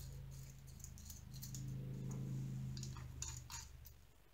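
Light plastic clicks and small rattles as a mini desktop vacuum's parts and a tray of diamond-painting drills are handled, over a faint low hum that stops about three and a half seconds in.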